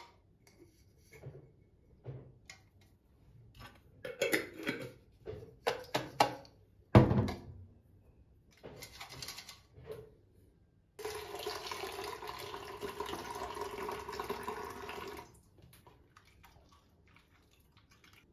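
Small clinks and taps of a glass jar and a plastic measuring jug as grated white soap is tipped in, with one loud knock about seven seconds in. Then a bathroom tap runs into the plastic jug for about four seconds, filling it with water to dissolve the soap.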